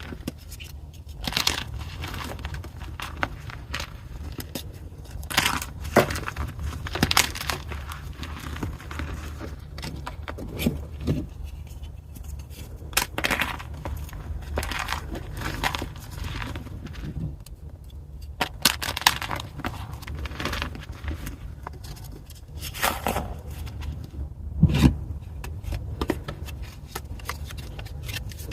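Pieces of gym chalk (magnesium carbonate) being crushed, with irregular crunches, cracks and crumbling scrapes, over a steady low hum.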